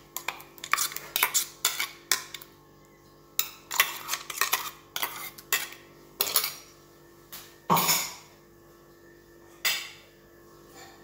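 A metal spoon scraping and tapping inside a mixer-grinder jar, knocking ground paste out into a steel bowl: quick, irregular clinks of metal on metal, with a few louder knocks later on.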